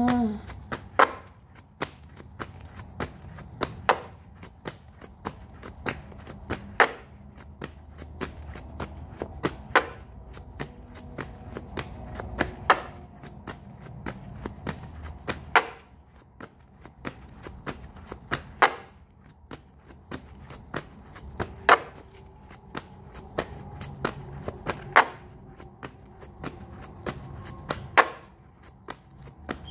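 A deck of tarot cards being shuffled by hand: a steady run of soft card flicks, with a sharper slap about every three seconds.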